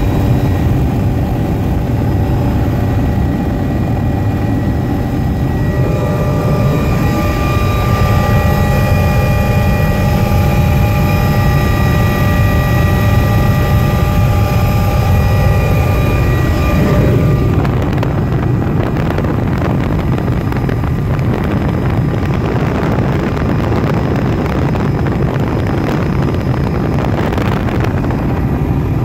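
Helicopter engine and rotor noise heard from inside the cabin in flight, a loud, steady rumble. A set of steady whining tones comes in about six seconds in and drops away around seventeen seconds, leaving a rushing noise over the rumble.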